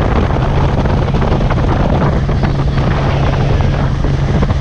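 Outboard motor of a small open boat running steadily under way, a constant drone, with wind buffeting the microphone and water rushing past the hull.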